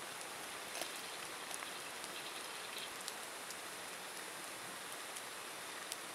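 Wood campfire burning with a steady hiss, with a few small crackles and pops.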